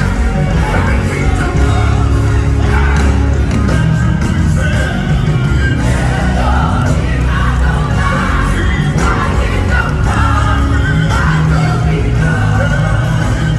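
Loud live gospel worship music with a heavy bass and voices singing.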